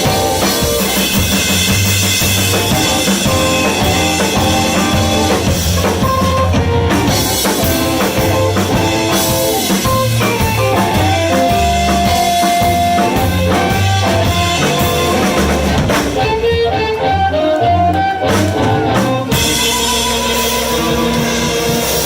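Live blues band playing, with drum kit and guitar; the cymbals drop out for a few seconds past the middle before the full band comes back in.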